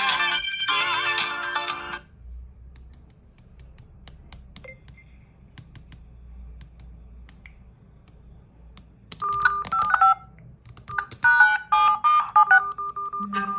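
Smartphone ringtone melody that cuts off about two seconds in, followed by several seconds of faint clicks and taps, then a different electronic ringtone of short repeated notes starting about nine seconds in.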